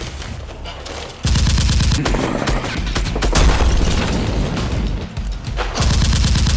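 Rapid bursts of automatic gunfire over action background music, the firing jumping much louder about a second in.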